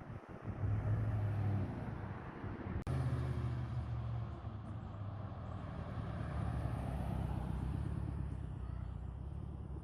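Steady low rumble of street traffic, with a single sharp click about three seconds in.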